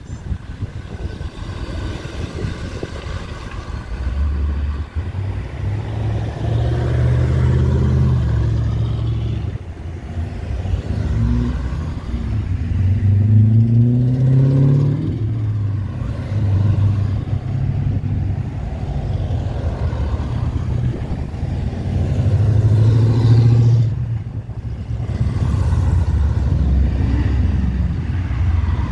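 Classic cars driving past one after another, their engines running louder and fading as each goes by. One car's engine rises in pitch as it accelerates about halfway through.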